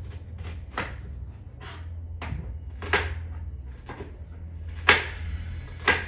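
Kitchen clatter from cooking: a string of short, sharp knocks, the loudest about five seconds in and again near the end, over a low steady hum.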